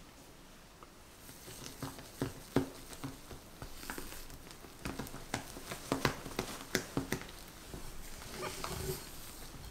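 Spatula folding airy meringue batter in a glass bowl: irregular soft squishing strokes mixed with sharp clicks, beginning about a second in.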